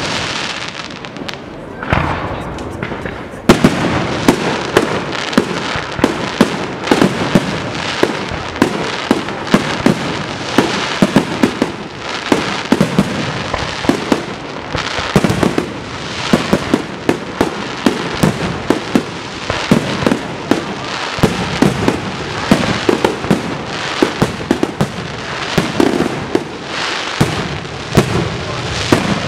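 Aerial firework shells fired from mortars, going off in a fast, irregular barrage of sharp bangs with crackle between them, several a second, thickening about three and a half seconds in.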